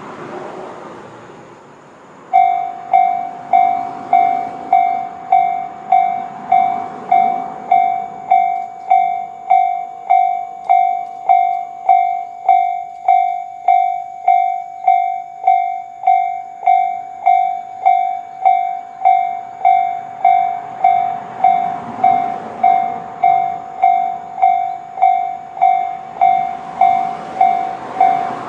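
Japanese railway level-crossing alarm of the Tobu 'tone C' slow-tempo type, sounded from both sides of the crossing. It starts about two seconds in and rings at an even, slow pace of about one and a half electronic dings a second. The warning means a train is approaching. A short swell of rushing noise comes just before the alarm begins.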